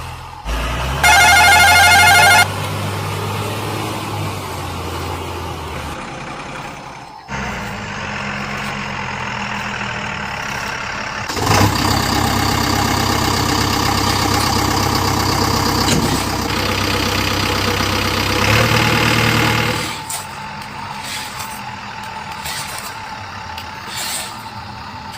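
Sound modules of RC dump trucks playing a simulated diesel truck engine running steadily, louder for a stretch in the middle. A loud steady tone sounds for about a second and a half near the start.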